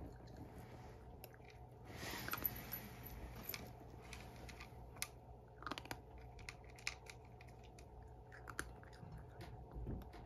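Domestic cat crunching dry kibble from a bowl: faint, irregular crunches and clicks, with a brief rustle about two seconds in.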